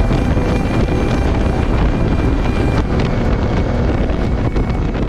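Wind buffeting the camera microphone on a Honda Transalp 700 at highway speed, with the bike's V-twin engine running steadily underneath.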